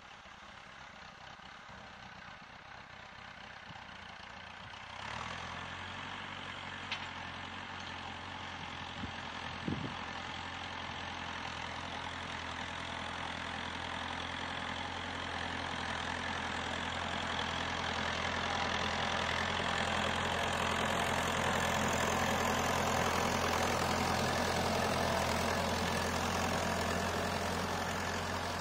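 Shibaura tractor engine running at steady speed while it pulls and powers a boom sprayer. The engine becomes clearly audible about five seconds in and grows steadily louder as the tractor draws near. Two brief sharp clicks are heard early on.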